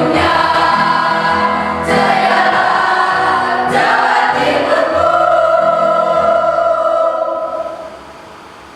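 Mixed choir of teenage students singing in harmony, closing on a long held chord that fades out near the end.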